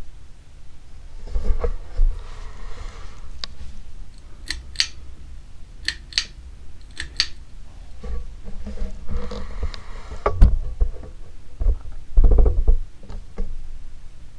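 Handling noise: rustling and low thumps, with three pairs of sharp clicks in the middle and the heaviest knocks near the end.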